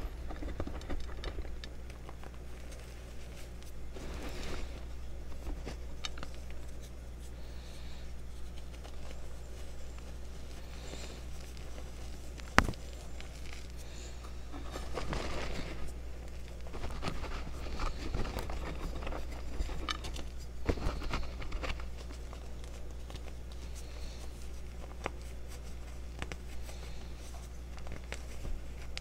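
Hands pressing and raking through crumbled gym chalk powder and chunks: soft, irregular crunching and crumbling, over a steady low hum. A single sharp click about halfway through is the loudest sound.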